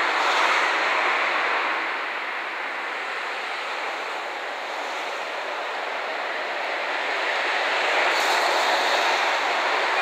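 HD300 hybrid shunting locomotive moving slowly: a steady rushing noise with no clear engine note, dropping a little a couple of seconds in and swelling again near the end.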